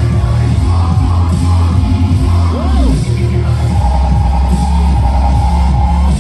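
Loud electronic dance music with heavy, distorted bass and a driving beat, played over a concert sound system.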